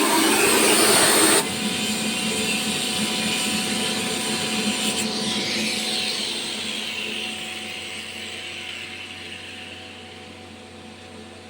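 Screw air compressor installation running: a loud rush of air cuts off suddenly about a second and a half in, leaving a steady machine hum with a few held tones that slowly grows fainter.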